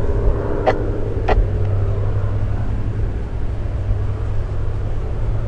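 The twin piston engines of a distant Cessna 414A Chancellor drone in flight, their faint hum fading after about two seconds, under a steady, loud, low rumble. There are two sharp clicks a little over half a second apart, about a second in.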